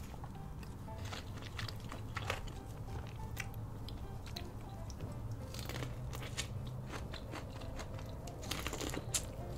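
Close-miked eating sounds: scattered crunches and clicks of king crab shell being cracked, with chewing, and a louder run of crunches near the end.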